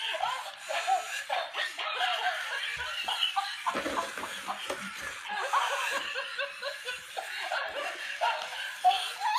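Animated sock monkey toy giving a high-pitched electronic laugh over and over as it spins on a wooden floor, with a few low knocks about four seconds in.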